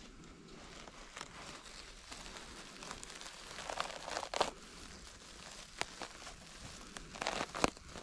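Grass and dry leaves rustling and crackling as a hand parts them around a mushroom and pulls it out of the ground. A few sharp crackles stand out, the loudest flurries coming about four seconds in and near the end.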